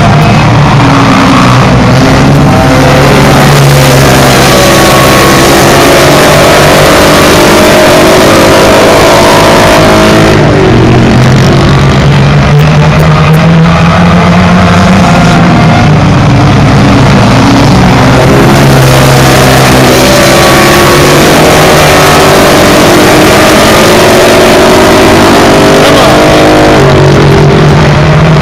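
A pack of racing go-kart engines running flat out on a dirt oval, several at once. Their pitch climbs and drops in waves every several seconds as the karts accelerate down the straights and lift for the turns. The sound is loud throughout.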